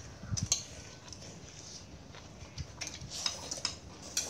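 Metal spoons clinking and scraping on ceramic plates and bowls as people eat, in a few scattered light taps.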